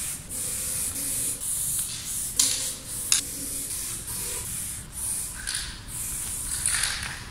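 Aerosol spray paint can spraying black outline strokes in a series of hissing bursts of about a second each, with short breaks between strokes. Two sharp clicks come about two and a half and three seconds in.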